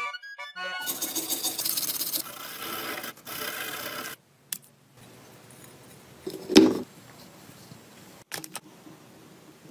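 A stiff brush scrubbing a metal flange, a rough steady scraping for about three seconds. After a short pause comes quieter rubbing, broken by one loud thump near the middle.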